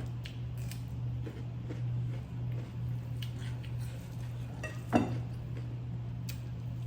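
Light clinks of kitchen utensils against pots and dishes over a steady low hum, with one short, louder sound about five seconds in.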